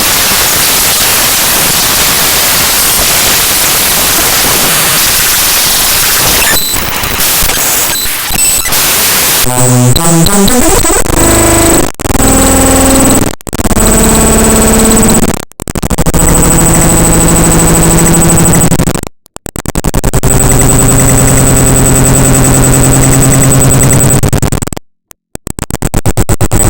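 The binary data of the Windows 10 program SnippingTool.exe played directly as audio. It starts as loud hiss-like static; about nine seconds in it turns into buzzy, stepping tones and hums over a steady high whine, cut by a few sudden brief drop-outs.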